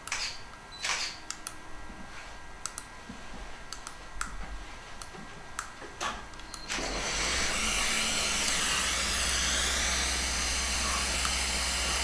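Scattered sharp clicks of a dental torque ratchet being worked to turn an implant into the jaw. About seven seconds in, a surgical suction starts with a loud, steady airy hiss over a low hum.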